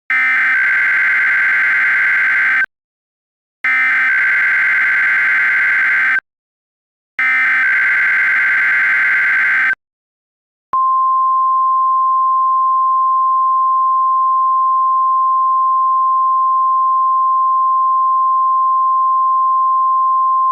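Emergency Alert System SAME header: three identical bursts of rapid data tones, each about two and a half seconds long with a second's gap between them, followed by the NOAA Weather Radio 1050 Hz warning alarm tone held steady for about ten seconds.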